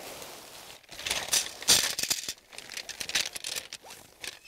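Nylon tent fabric and gear bags being handled: rustling and crinkling, with short rattles and sharp knocks from about a second in.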